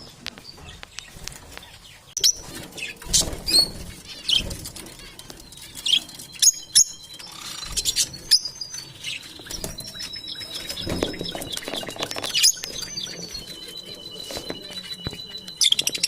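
Pet parrots calling: sharp chirps and squawks with clicks, then several long, steady whistles in the second half.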